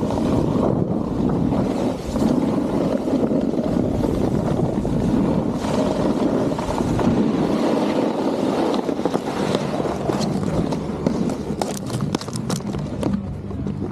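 Snowboard sliding and carving over firm groomed snow, a steady scraping rush mixed with wind buffeting the microphone. Near the end a quick run of sharp clicks as the rider stops and releases a binding strap.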